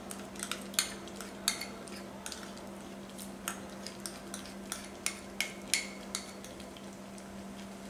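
Scattered light clinks and taps of a utensil against a small bowl and a nonstick pan as thick red sauce is scraped and tipped into the pan, over a steady low hum.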